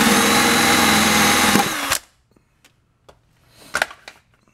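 Cordless drill running steadily as a long bit bores through a plug in the truck's body panel. It slows and stops about two seconds in, followed by a few faint knocks.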